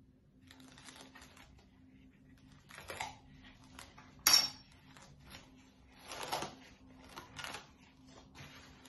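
Cling film crinkling and rustling as it is handled over a bowl, with scattered small knocks of kitchen utensils and one sharp clink about four seconds in.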